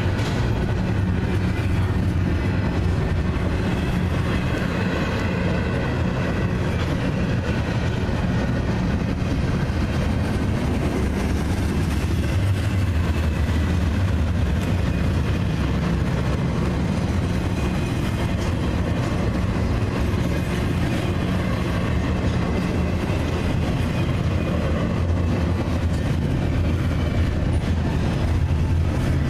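Double-stack intermodal container cars rolling past on the rails in a steady low rumble of wheels on track.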